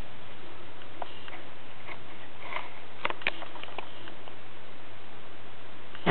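Faint scattered clicks and soft rustles over a steady hiss, from a boa constrictor working a mouse down as it swallows. A heavier knock comes right at the end.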